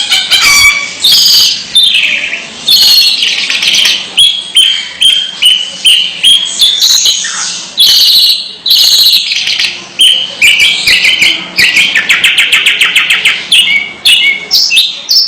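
Long-tailed shrike (cendet) singing continuously: a fast, varied string of harsh chattering notes and high trills, with a quick rattling trill near the end.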